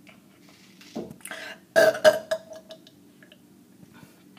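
Deliberate, forced burps from a person: a short one about a second in, a longer one right after, and the loudest pair of burps around the two-second mark.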